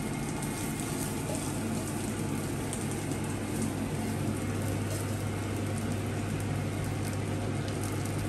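Hot fat and garlic sizzling in a frying pan just used to sear steak, a steady even sizzle as the garlic is pushed around with tongs. A low steady hum runs underneath.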